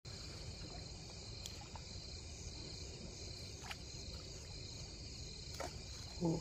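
Crickets chirring steadily in a night-time insect chorus over a low rumble, with a few faint clicks and one brief louder sound just before the end.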